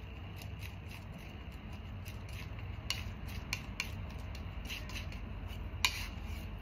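Palette knife mixing oil paint on a palette: faint scraping with a few light clicks of the knife, the sharpest about six seconds in, over a steady low hum.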